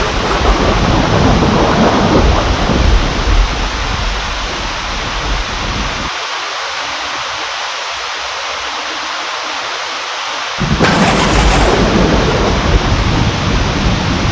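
Heavy rain falling steadily during a thunderstorm, with thunder rumbling. The rumble stops abruptly about six seconds in, leaving only the rain, and a new thunderclap breaks in suddenly about eleven seconds in and rumbles on.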